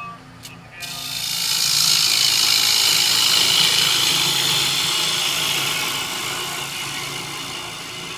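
A bowl gouge cutting the inside of a spinning cherry bowl on a wood lathe: a steady hiss of shavings peeling off. It starts about a second in and slowly fades toward the end, over the lathe motor's low hum.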